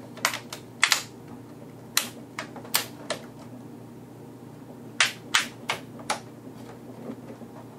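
Plastic LCD bezel of an Acer Aspire One netbook snapping into place: about a dozen sharp clicks in small irregular groups as its clips are pressed home around the screen.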